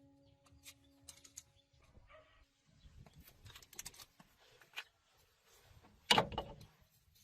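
Scattered light clicks and knocks, then a louder clatter about six seconds in. A faint steady ringing tone fades out about two seconds in.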